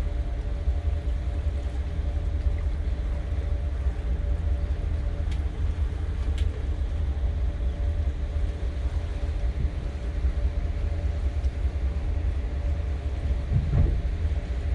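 Sea Ray Sundancer's MerCruiser 7.4 inboard engine running at slow cruising speed, a steady low rumble with a faint hum above it.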